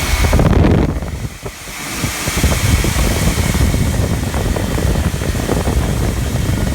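Loud rushing air from data-center cooling and server fans, with gusts buffeting the microphone; the level dips briefly about a second in.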